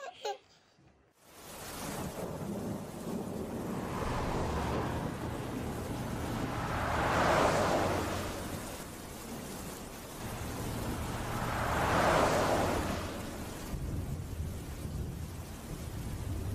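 Steady rain that comes in after about a second of near silence, with two rolls of thunder that swell and fade, the first about seven seconds in and the second about twelve.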